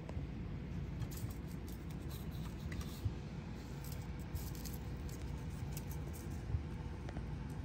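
Kittens' paws and claws pattering and scrabbling on a tile floor as they bat a pom pom, with a few light taps, over a steady low background rumble.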